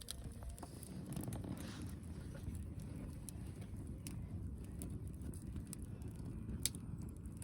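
Wood fire burning in a secondary-combustion fire pit: a steady low rumble with scattered sharp crackles and pops, one louder pop near the end.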